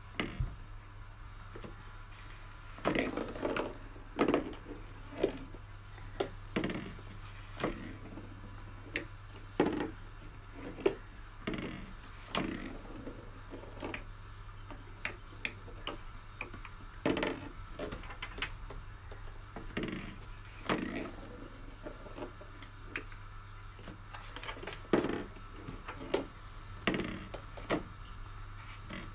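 Marbles being launched and played on a homemade cardboard Corinth game (Japanese smartball board): irregular knocks and clicks as they strike the paper-straw pins and the cardboard walls and drop into the scoring slots, with the launcher being pulled and released.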